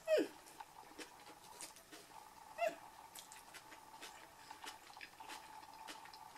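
Faint mouth sounds of biting and chewing a soft, soggy wrap, with scattered small clicks. There is a short falling 'mm'-like hum right at the start and another brief one about two and a half seconds in, over a faint steady tone.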